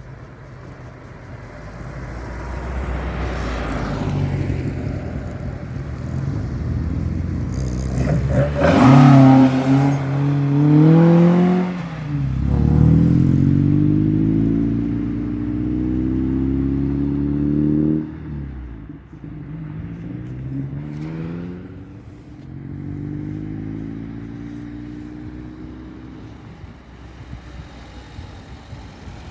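Cars driving past one after another, engines accelerating. The loudest comes through about a third of the way in: its note climbs, drops at a gear change, and climbs again before it fades. A quieter car accelerates past later.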